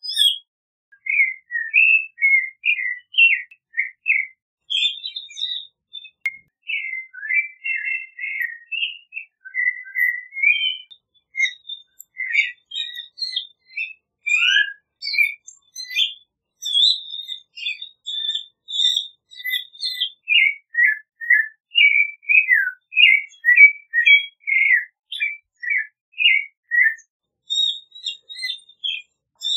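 Clay-colored thrush singing: an unbroken run of short, varied, clear whistled notes and phrases.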